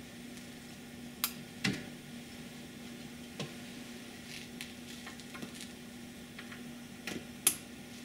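Scattered clicks and knocks from hands handling the capacitor packs and their cable connectors, loudest about a second and a half in and again near the end, over a steady faint hiss and low hum.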